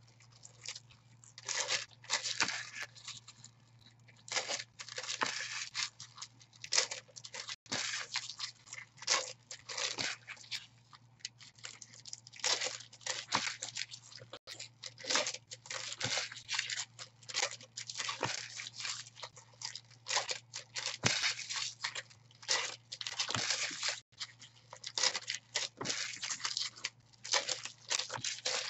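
Bowman Chrome football card pack wrappers being torn open and crinkled by hand, in quick irregular bursts of tearing and rustling.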